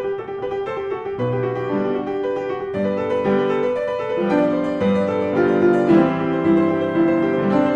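Classical piano music, a steady run of notes and chords.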